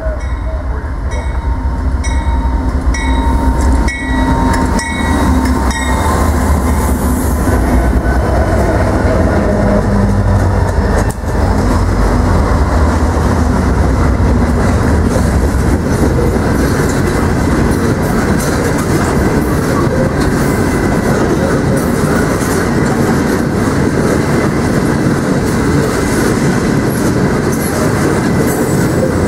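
Freight train passing close by: diesel locomotives go by for the first dozen seconds, with a tone repeating about twice a second during the first six. Then a long string of oil tank cars rolls past with a steady clickety-clack of wheels over the rail joints.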